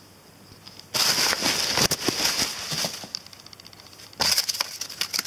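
Packaging being handled in two bursts of crinkling and rustling, with light ticking between them.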